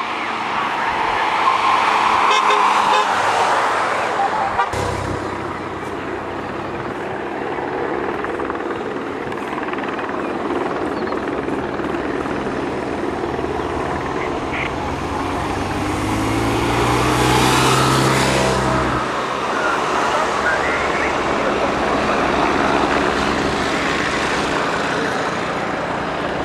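Road vehicles of a race escort passing by: a police car, then a column of motorcycles, with engine and tyre noise swelling and easing. About two-thirds of the way through, one vehicle passes close, its engine note dropping in pitch as it goes by.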